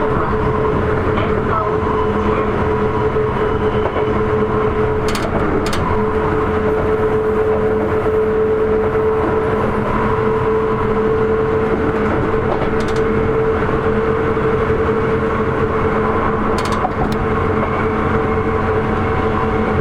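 Sotetsu 8000 series electric train with Hitachi IGBT-VVVF drive running at steady speed: an even whine over rail and running noise, with a few short sharp clicks.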